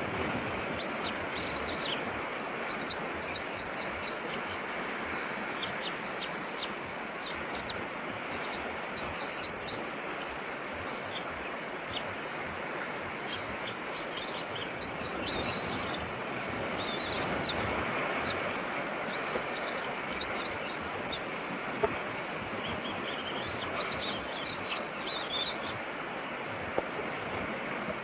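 Bird chirping in short bursts of three to five quick high notes, repeated every few seconds, over a steady rush of wind and surf. A few sharp clicks fall in the second half.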